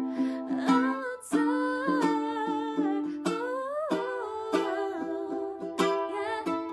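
A voice hums a wordless melody that slides up and down, over a steady accompaniment of plucked string notes.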